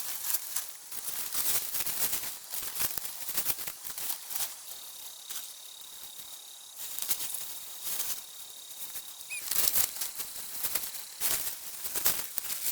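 Palm leaves rustling and crackling as they are handled and laid over a bamboo roof frame: an uneven run of crisp rustles and light clicks.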